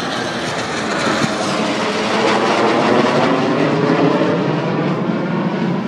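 A jet fighter and a World War II piston-engine fighter passing low overhead together in formation, their engines making a loud continuous noise. It builds to its loudest about halfway through, then eases off a little.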